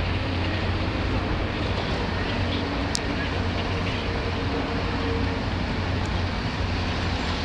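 Steady low rumble and hiss of city traffic crossing a road bridge.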